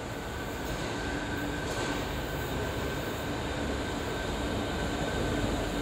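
London Underground tube train approaching and running into a deep-level platform: a rumbling rail noise that grows steadily louder, with a steady high whine over it.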